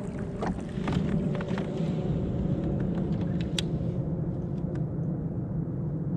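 A small motor running steadily with a low drone and a faint steady hum, starting suddenly with a few light clicks.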